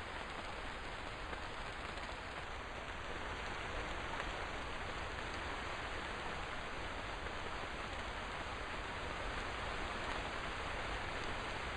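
Steady rain falling, an even hiss of many drops with no single strikes standing out.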